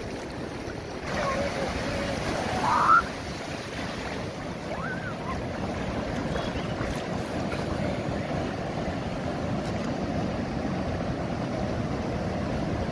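Shallow sea surf washing steadily. A voice gives a short rising shout about three seconds in, the loudest moment.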